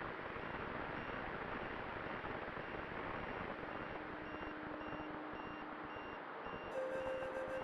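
A steady rushing noise with no clear pitch. Near the end, music comes in with a held flute-like note.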